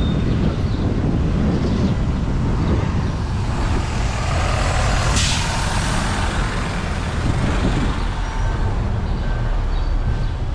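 Diesel engines of a garbage truck and a city bus running close by, a steady low rumble, with a short air-brake hiss about five seconds in.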